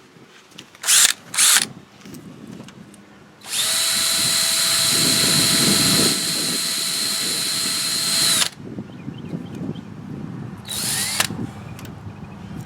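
Electric power drill scrubbing corrosion off battery cable terminals. Two short bursts come about a second in, then a steady run of about five seconds that winds down as it stops, then one more short burst near the end.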